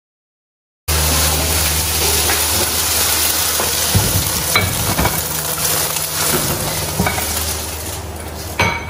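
Scrambled eggs sizzling in a nonstick wok while a wooden spatula stirs and scrapes through them, over a steady low hum. It starts suddenly about a second in, and a few clattering knocks come near the end.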